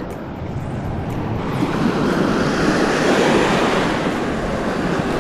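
Ocean surf breaking and washing up a sand beach at the waterline, the wash swelling about two seconds in.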